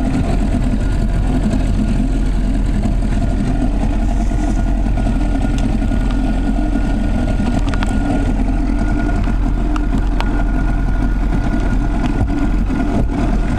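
A small boat's motor running steadily while under way, a constant low hum with a couple of faint clicks near the middle.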